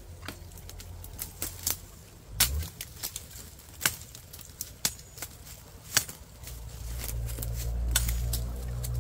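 A 10-inch L6-steel KRM Bamboo knife chopping through dry vines and brush, with a run of sharp, irregular snaps and cracks from blade strikes and breaking twigs. A low rumble builds up over the last couple of seconds.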